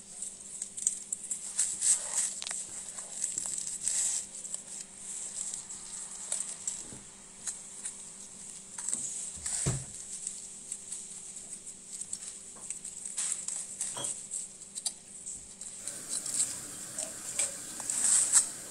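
Crisp roasted Peking duck skin crackling and crunching under a carving knife, a run of small irregular crackles as the blade cuts through it, with one dull knock about halfway through.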